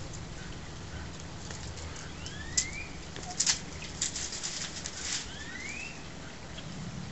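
A dog and cat play-fighting: scuffling and rustling, with a few sharp scrapes and clatters through the middle. A bird chirps twice with a short rising note. A steady low hum runs underneath.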